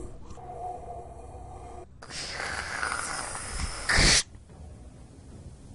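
A quiet drone, then a burst of TV static hiss about two seconds in, louder and harsher just before the end, which cuts off sharply as an edit transition.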